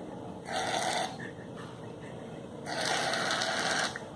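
Aerosol can of shaving foam spraying in two bursts of hiss: a short one about half a second in and a longer one of about a second near the end.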